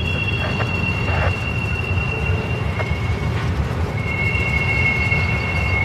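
Intermodal freight train cars carrying truck trailers rolling past with a steady low rumble, over which the wheels squeal in thin, steady high tones. The squeal slips to a slightly lower pitch about two seconds in, and the higher tone joins it again near the end, with a few faint clicks from the wheels on the rails.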